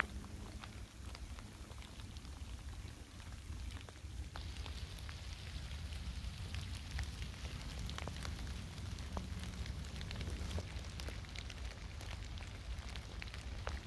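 Rain falling in a forest, single drops ticking on leaves over a steady low rumble. A denser hiss joins about four seconds in.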